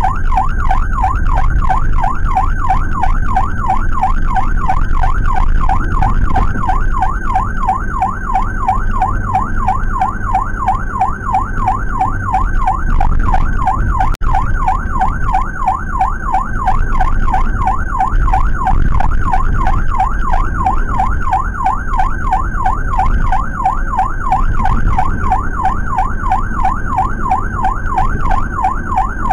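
Emergency siren on a fast yelp, its pitch rising and falling rapidly and without a break, heard inside the cabin of a Suzuki APV ambulance, with engine and road rumble beneath. It drops out for a moment about halfway.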